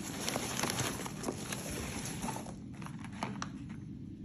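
Packaging rustling and crinkling as a parcel is unwrapped, with small clicks and taps; it eases off and goes quieter about two and a half seconds in.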